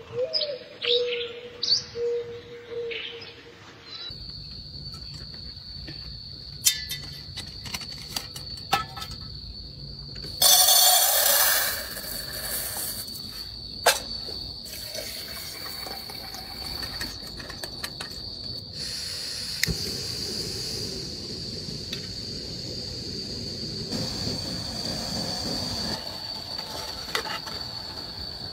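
Birds chirping for the first few seconds, then crickets chirring steadily in one high tone, with clicks and knocks of metal camp cookware being handled. Near the middle comes a loud hiss lasting about a second and a half, and in the second half a steady low rush from a small gas camping stove burning under a pot.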